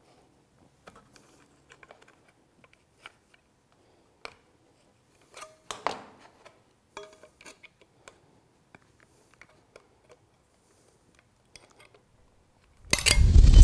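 Aviation snips cutting thin aluminum sheet in short, light clicking snips, with a brief clatter of metal tools on the bench about halfway through. Near the end comes a sudden loud thump with a deep rumble.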